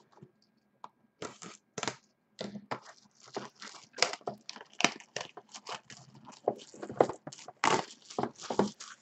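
Clear plastic shrink wrap being slit and torn off a hobby box of baseball cards: a dense run of irregular crinkling and crackling rustles that starts about a second in.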